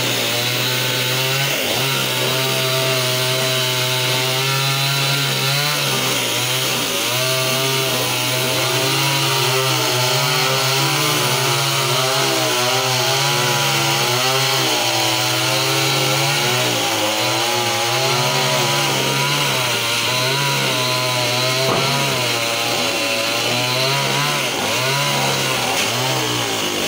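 Chainsaw running continuously, its engine note wavering up and down as it works on a fallen tree.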